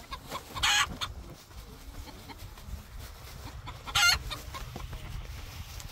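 Two short, loud bird calls about three seconds apart, over a low steady rumble.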